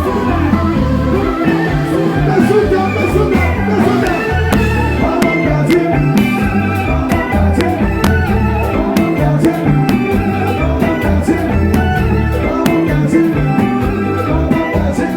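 Loud music with singing, bass and a steady beat.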